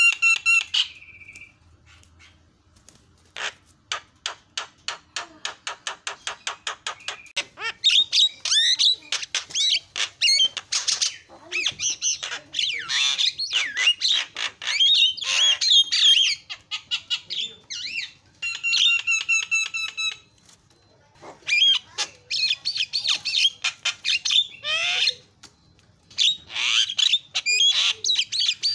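Javan myna singing a varied song. It opens with a held whistle, then gives a run of rapid clicks at about four a second, then a long stretch of harsh squawks and chattering calls. A second held whistle comes about two-thirds of the way in, and loud squawks return near the end.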